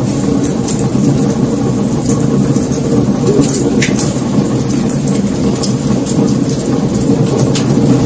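Wood fire burning: a steady low roar of flame with scattered crackles and pops from the logs, one sharper pop about four seconds in.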